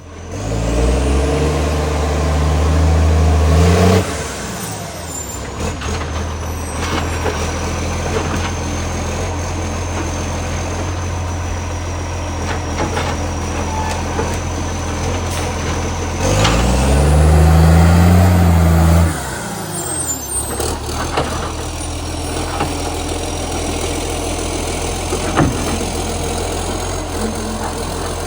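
Garbage truck's diesel engine revved twice, each rev held for a few seconds and cut off suddenly, idling in between, with a high whine that rises at each rev. A leaking exhaust pipe makes the revs unusually loud.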